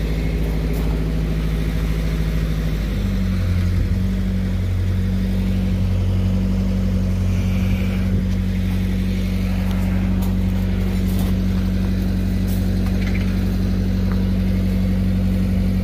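Engine-driven Lincoln Pipeliner 200D diesel welding machine running steadily with a low, even hum; its note shifts slightly about three seconds in.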